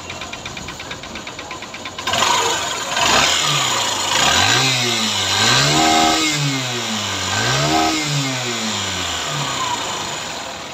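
Honda SP Shine 125 single-cylinder four-stroke motorcycle engine idling with a fast even tick, then revved twice, its pitch rising and falling each time before dropping back toward idle.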